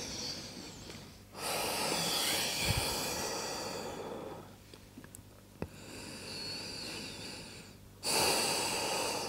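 A person breathing slowly and deeply into a close microphone: long hissing breaths, with three starting about a second in, midway and near the end, separated by short pauses.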